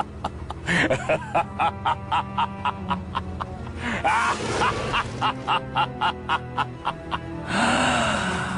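Meme music clip with a fast steady beat of sharp hits, about three a second, and short sliding vocal sounds over it.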